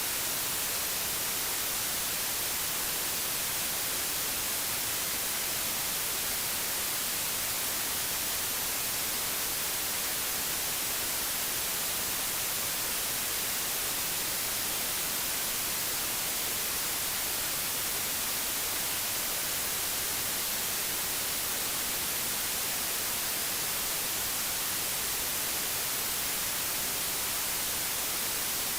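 Digitally generated white noise: a steady, even hiss with no changes.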